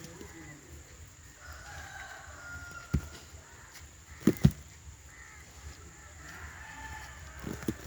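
Two drawn-out bird calls, the first in the first half and the second in the second half. Between them come sharp knocks, the loudest a quick double knock about halfway through.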